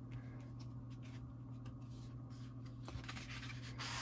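Sheets of scrapbook paper being handled on a tabletop: faint scattered taps and rustles, with a louder brush of paper sliding near the end. A steady low hum runs underneath.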